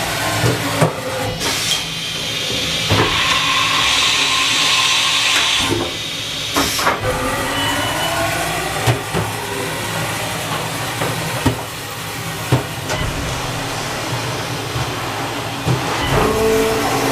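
Haas VF-3 SS 5-axis CNC vertical machining center running, with a steady hum, tones gliding up and down in pitch, and scattered clicks. A loud hiss starts about three seconds in and lasts for a few seconds.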